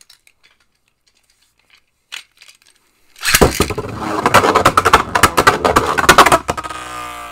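Beyblade Burst spinning tops launched into a plastic stadium about three seconds in, then clashing and rattling rapidly against each other and the stadium walls. Near the end a single top whirs on, its pitch wavering.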